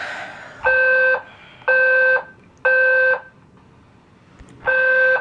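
Building fire alarm sounding loud, steady, buzzy blasts in the temporal-three evacuation pattern: three half-second blasts about a second apart, a pause of over a second, then the next group of three begins near the end.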